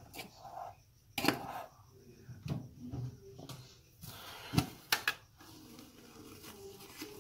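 Kitchen handling noises: a few sharp knocks and clicks of a tin canister and its lid being handled and opened. The loudest are three quick clacks about four and a half to five seconds in.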